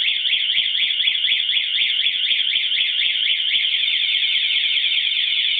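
Motorcycle alarm siren (a 125-decibel unit) sounding after the armed bike is touched: a loud, fast warbling tone, about six sweeps a second, which switches to a different warble about three and a half seconds in.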